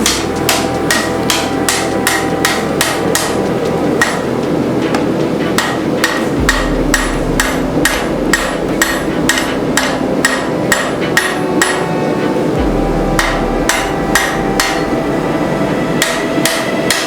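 Rapid hammer blows on hot steel at the anvil, about four to five strikes a second with a metallic ring, during rough forging of a sword blade.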